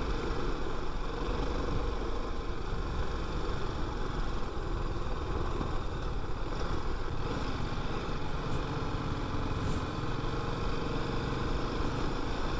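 Motorcycle engine running steadily at low speed, mixed with a continuous low rumble of wind and road noise.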